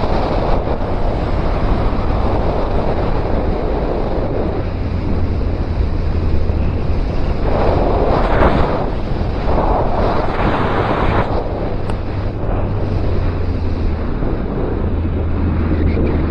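Heavy wind rush over the microphone of a moving motorcycle, swelling and easing, with the steady low drone of the Suzuki Bandit 1250's inline-four engine underneath.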